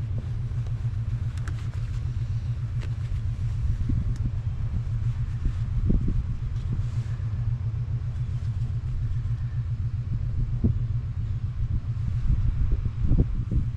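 Truck engine idling steadily, a low rumble, with a few light knocks and clicks scattered over it.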